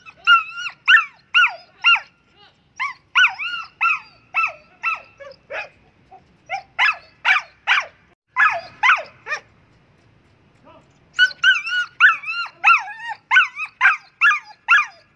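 Gull Terr dog barking in rapid runs of high-pitched, yelping barks, about two to three a second, with short pauses between four bouts.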